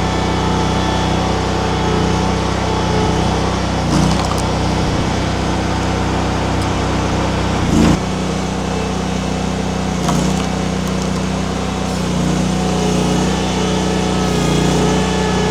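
Mini skid steer's engine running steadily at working throttle while it drives a hydraulic wood-splitter attachment, with a few brief surges in its note.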